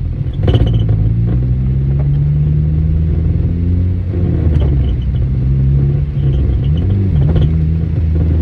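Cabin sound of a 2013 Honda Civic Si under way: a steady low drone from the engine and drivetrain, its pitch shifting a little, broken by three short clanks about half a second, four and a half and seven and a half seconds in. This is the intermittent clanking the owner takes for a clutch or transmission fault.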